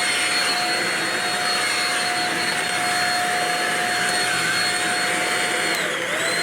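Shark DuoClean vacuum cleaner running on carpet, a steady high motor whine with airflow hiss. Near the end the pitch dips briefly and comes back up.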